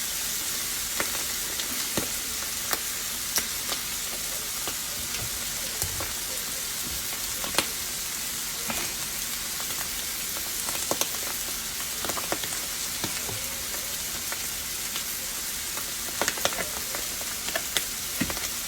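Onions, mushrooms and garlic sizzling in a cast iron skillet: a steady frying hiss with scattered small pops and clicks.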